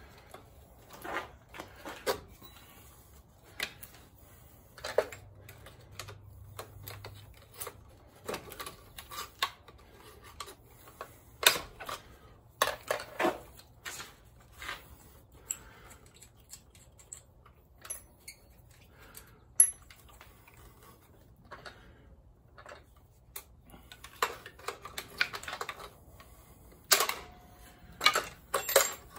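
Irregular clicks, taps and clunks of metal parts and hand tools being handled as a car's air-conditioning compressor is worked loose from its bracket on the engine. The clicks come singly and in short clusters, with a busier run near the end.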